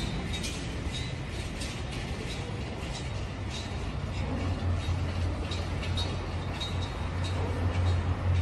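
Urban street shaking in an earthquake: a low rumble that grows louder about halfway through, with many quick creaks and rattles throughout.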